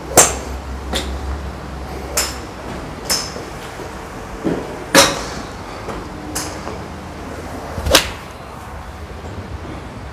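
Golf clubs striking balls in the hitting bays of a driving range: a series of sharp cracks at uneven intervals, about eight in all, the loudest near the start, about five seconds in and about eight seconds in.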